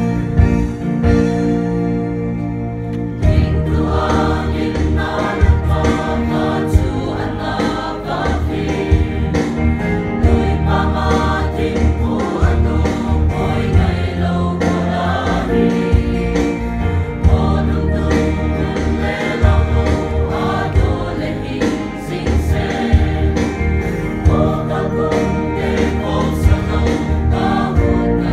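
Mixed choir of men and women singing a gospel hymn over instrumental accompaniment; the voices come in about three seconds in, after a short instrumental passage.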